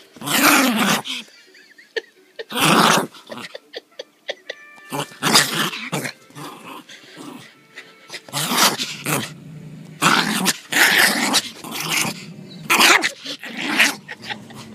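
Chinese Crested dog play-growling in repeated short, rough bursts during a silly, excited spell of play.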